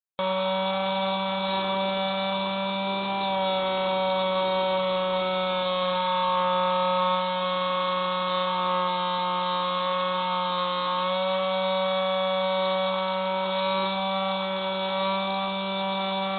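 Electric motor and propeller of a small RC camera plane, a steady buzzing whine heard from on board, shifting slightly in pitch about three seconds in and again around eleven seconds as the throttle changes.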